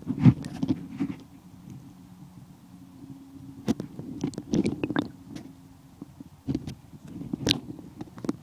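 Muffled water movement and low rumble as heard with the microphone underwater in a shallow stream, broken by scattered knocks and clicks of handling, the sharpest about a third of a second in and around the middle.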